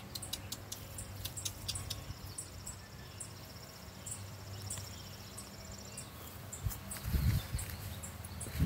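Insect trill: a high, fast-pulsing buzz from about two seconds in until about six seconds, among scattered faint high ticks, over a low steady hum. A couple of louder low, muffled bumps come near the end.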